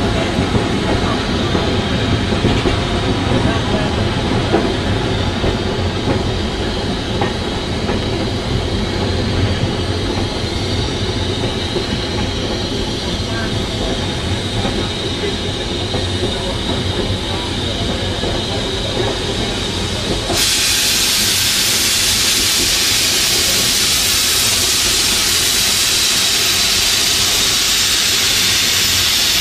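Shay geared steam locomotive train on the move, heard from aboard a passenger car: a rumble and rattle of the cars running on the rail. About two-thirds of the way through, a sudden steady, loud hiss takes over and the rumble drops away.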